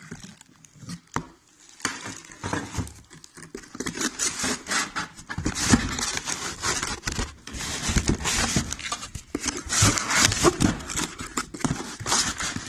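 Cardboard and plastic packaging being handled while a cordless circular saw kit is unboxed: irregular rustling and crinkling with small knocks and scrapes.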